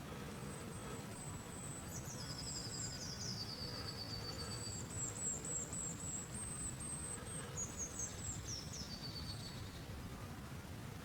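Small songbirds singing high, quick, trilling phrases that start about two seconds in and die away near the end, over a steady low background rumble.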